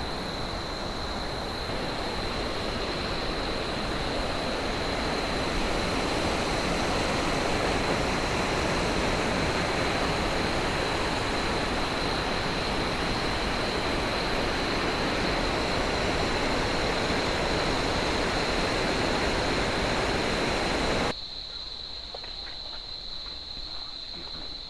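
Water rushing down a turbulent waterfall cascade, a loud steady rush, with a steady high-pitched insect drone over it. Near the end the water noise drops off abruptly, leaving quieter water and the insects.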